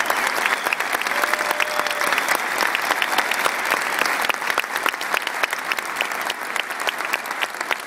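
Large crowd applauding: many hands clapping in a dense, steady ovation.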